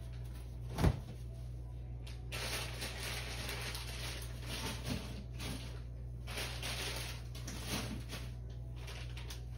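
Quiet room tone with a steady low hum. A single sharp knock comes about a second in, followed by faint, irregular rustling and shuffling.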